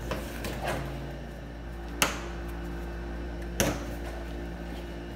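Plastic inner fender liner being pulled loose from a car's wheel well, with two sharp snaps about a second and a half apart, over a steady low hum.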